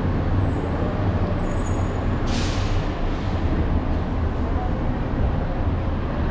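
Steady low rumble of traffic along the airport pickup roadway, with a short hiss about two seconds in that fades out within a second.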